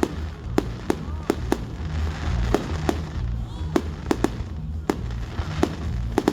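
Fireworks going off in a rapid, irregular series of sharp bangs, several a second, over a low continuous rumble.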